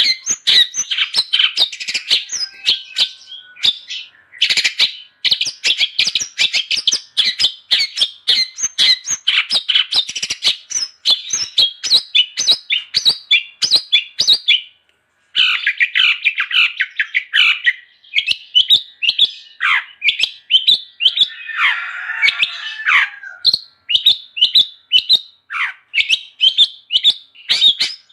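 Long-tailed shrike (cendet) singing a fast, unbroken chatter of sharp chirps and squawks. There is a brief pause about halfway through and a harsher, raspy stretch a few seconds later.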